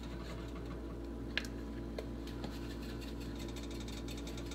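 Steady low hum of the kitchen, with a few light clicks and taps, about one and a half, two and two and a half seconds in, as a pepper container is handled and shaken over the pot.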